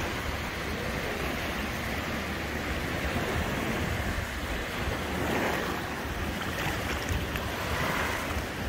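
Small waves washing in and breaking on a sandy shore, swelling and easing every few seconds, with wind rumbling on the microphone.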